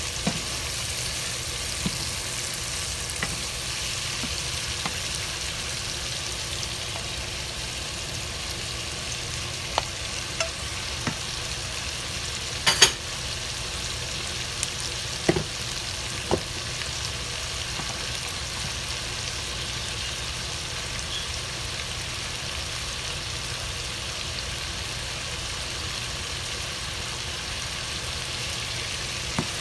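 Beef and vegetables sizzling steadily in a frying pan while being stirred with a wooden spatula. A few short knocks break through, the loudest about 13 seconds in.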